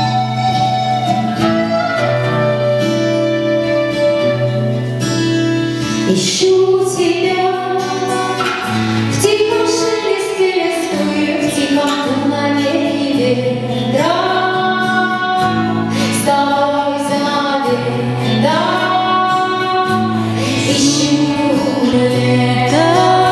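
Folk band music: plucked guitar and a steady, rhythmic bass line under a gliding lead melody, with singing.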